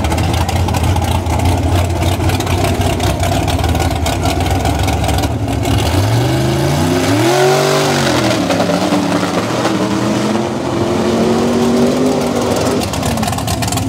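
Pro modified mud truck's engine running hard at high revs as the truck powers through a mud pit. A little past halfway the revs rise and fall once, then hold steady.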